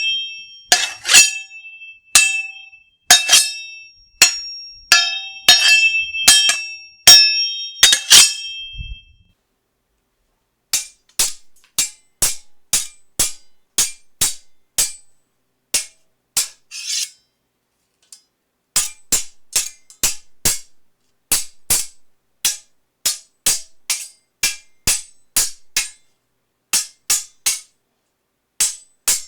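A run of sword sound effects: for about the first nine seconds, metal blade strikes that each ring on with a bright tone, then after a short pause a quick series of short, dry hits without ringing, one or two a second.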